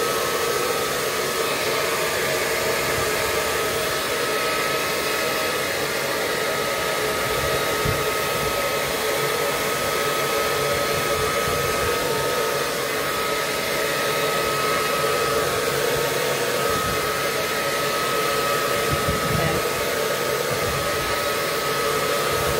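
Remington handheld hair dryer running steadily, blowing on a strand of hair: an even rush of air with a thin, constant whine.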